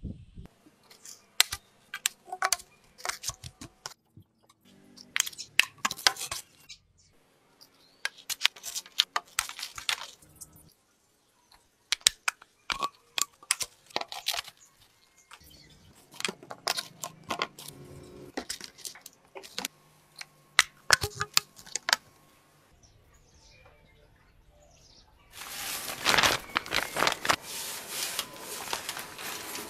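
Clusters of sharp plastic clicks and knocks from PVC pipes being pushed into tee and elbow fittings and set down on a tile floor. Near the end comes a longer rustle of the fabric sheet being spread over the frame.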